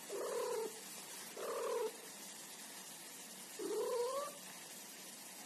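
Long-haired cat giving three drawn-out warning yowls while guarding her ball from a reaching hand, the first two held level and the last one rising in pitch.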